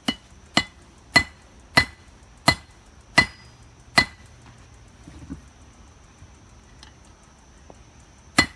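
Hammer blows on a hot mokume gane billet over an anvil during forge welding: seven ringing strikes about every two-thirds of a second, slowing slightly, then a pause of about four seconds and one more strike near the end.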